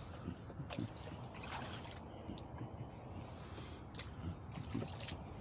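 Rowboat being rowed through calm water: oars dipping, with faint water trickling and small splashes and clicks scattered through the strokes.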